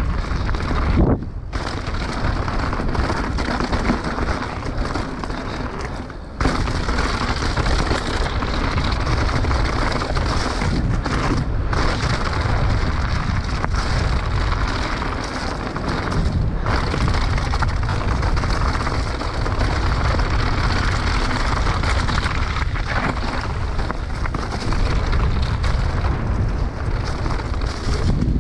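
Mountain bike descending a rough trail, its frame and parts rattling and clattering loudly over a steady noisy rumble of tyres on dirt and stones; the noise briefly drops out a few times.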